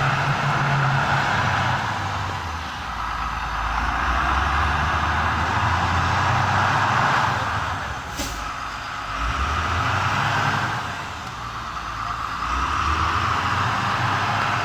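Continuous rumbling machine noise with a hiss on top, swelling and easing every few seconds, with one sharp click about eight seconds in.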